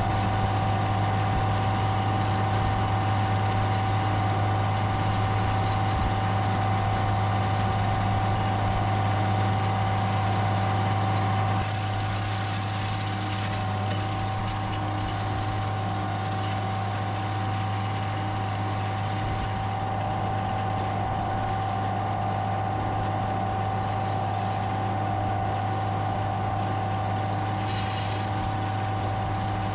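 A John Deere tractor's engine running steadily under load while it pulls and drives a PTO-driven mower through dry grass, with a steady high hum over the engine note.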